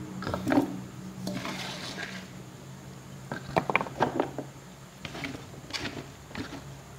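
Sliced bamboo shoots being packed down by hand into a plastic jar for pickling: irregular crunches, rustles and knocks of the shoots and hand against the jar.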